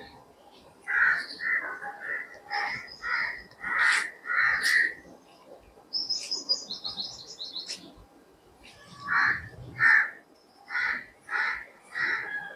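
Crows cawing over and over in two runs of short calls. About six seconds in, another bird gives a quick series of high chirps that step down in pitch.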